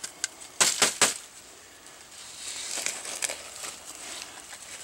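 Metal hand trowel digging into hard, untilled soil: a few sharp scrapes and crunches, loudest about half a second and a second in, then lighter scraping and crumbling of soil.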